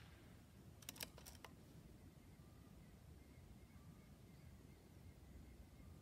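A few sharp metallic clicks about a second in, from the Diana Outlaw's side lever being worked to cock the PCP rifle and index the next .22 pellet from its magazine between shots. Otherwise near silence.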